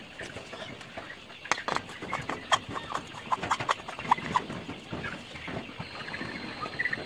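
A run of knocks, clicks and rattles as a heat-lamp bulb is handled and hung inside a wire-mesh brooder cage, loudest from about a second and a half in until about five seconds in, with a few short chirps among them.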